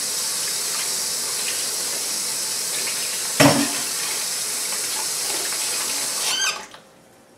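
Beaten eggs sizzling in hot oil in a cast-iron skillet, a steady hiss. There is a single sharp knock about three and a half seconds in, and the sizzle cuts off suddenly near the end.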